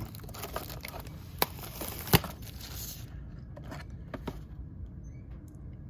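Crinkling and rustling of a trading-card blaster box's plastic packaging being handled, with two sharp clicks in the first couple of seconds. It quiets to light handling noise after about three seconds.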